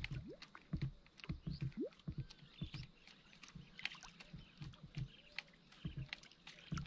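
Soft, irregular hollow knocks and lapping against a plastic kayak hull as the standing angler shifts his weight and jerks the rod to work a lure. Birds chirp in the background.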